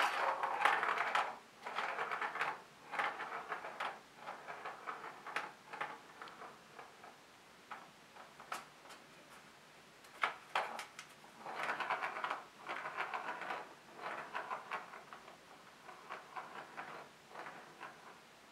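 A plastic ball rolling and rattling around the track of a Catit Design Senses Circuit cat toy, in runs of about a second at a time with clicks and knocks against the plastic as a kitten bats it; the loudest click comes right at the start.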